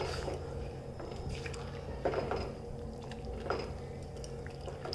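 Silicone spatula stirring lumps of jaggery in hot water in a steel saucepan to dissolve them: soft liquid sloshing and a few light scrapes against the pan, over a low steady hum.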